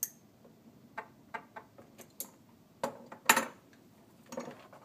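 Metal pliers clicking and clinking against a metal hose clamp as it is worked onto a plastic hose: a scatter of sharp ticks, the loudest about three seconds in.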